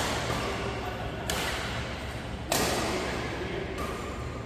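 Badminton rackets striking the shuttlecock in a doubles rally: about four sharp hits, roughly one every second and a quarter, each with a short echo, over a steady low hum.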